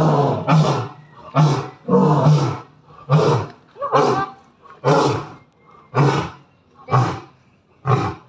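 Big cat roaring in a series of short roars, about one a second, each fading quickly.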